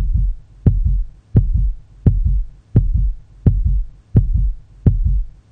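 Human heartbeat sound effect: a steady run of low, deep beats, about one and a half a second.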